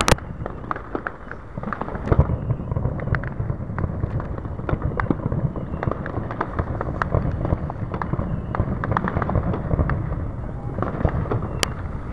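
Fireworks display: one sharp bang right at the start, then a dense, continuous barrage of pops and crackles over a low rumble, with a few sharper cracks near the end.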